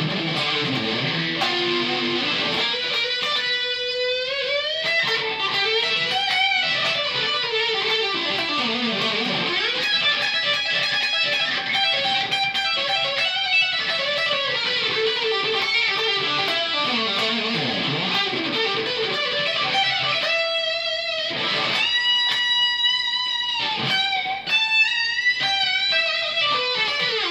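Rangka Professor S V.2 Strat-style electric guitar played through a high-gain distorted tone: a lead solo of fast single-note runs and long sustained notes, with several notes sweeping down and back up in pitch.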